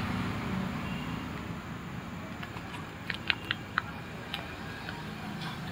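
Faint handling and fumbling noise from a small package being worked open by gloved hands. A quick run of about five sharp clicks comes a little past the middle.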